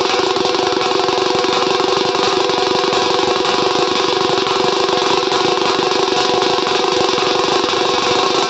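Banjo party band playing loud: an amplified Indian banjo gives a buzzing fast tremolo over quick drumming on a strap-hung drum beaten with sticks. The sound is steady, with no breaks.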